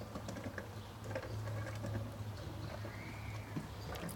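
Child's small bicycle with plastic training wheels rolling over wooden deck boards: faint, irregular light knocks and clicks.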